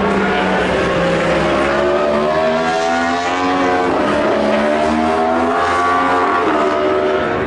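Superbike racing motorcycle engine at high revs, its pitch climbing and dropping twice as the bike accelerates on the circuit.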